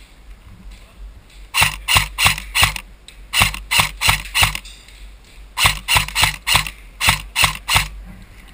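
Airsoft rifle firing close by: about fifteen sharp, clicking shots in four quick strings of three or four, about three shots a second, with short pauses between strings.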